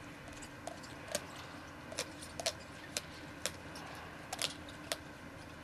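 A German Shepherd gnawing on a Chewber chew toy: irregular sharp clicks and crunches of teeth biting into it, roughly two a second.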